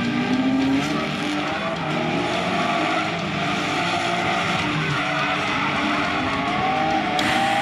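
Two drift cars battling in tandem: engines revving hard, their pitch rising and falling, over tyres skidding and squealing.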